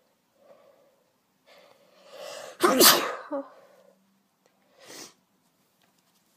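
A woman sneezing once, hard and voiced, after a drawn-in build-up breath, then a short sharp breath about two seconds later. It is an allergy sneeze, brought on by cat allergies.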